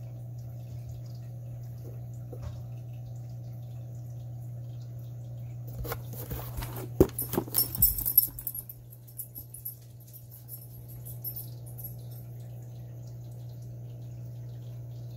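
Cardboard motherboard box being handled and turned over: a burst of rustles, scrapes and knocks lasting a few seconds, starting about six seconds in, over a steady low hum.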